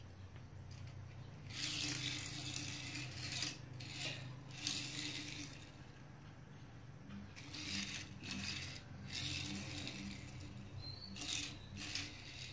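Small die-cast toy cars rolling across a tiled floor, their wheels rattling in several short runs, over a steady low hum.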